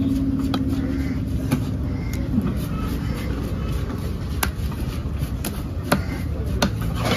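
Heavy cleaver chopping shark meat against a wooden chopping block: about half a dozen sharp knocks at irregular intervals, over a steady low rumble of background noise.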